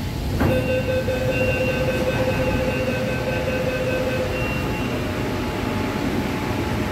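Kolkata Metro East-West Line train running between stations, heard inside the carriage as a steady rumble. A steady high-pitched whine of several tones sets in suddenly about half a second in and fades out after about four and a half seconds.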